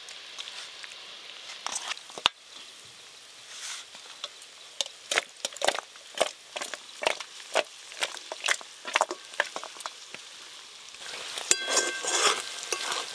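Wet squelching and slapping of hands kneading fried chicken pieces with yogurt and spice paste in a steel bowl, over a steady frying sizzle. Near the end, chopped onions fry louder in a kadai, with a metal spatula scraping the pan.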